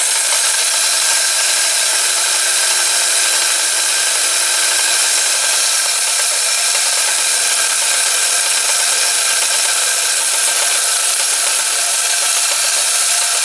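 Marx toy WW1 tank's motor and gears running in a steady whirr, its flint wheel grinding against the flint to throw sparks: the reassembled mechanism working.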